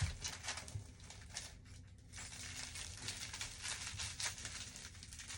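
Makeup brushes and their plastic packaging being handled: light rustling and a string of small clicks and taps, with a soft knock at the start.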